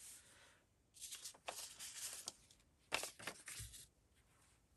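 Faint rustling of paper scraps being handled, in two short spells, with a soft thump near the end of the second.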